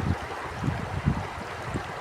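Stream water flowing with a steady rushing hiss, overlaid by irregular low rumbling gusts of wind buffeting the microphone.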